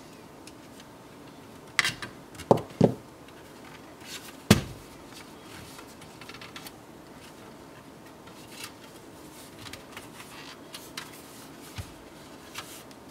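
Handling noise from taking apart a thin client's casing by hand: a few sharp clicks and knocks in the first half, the loudest about four and a half seconds in, then faint scattered ticks and rubbing.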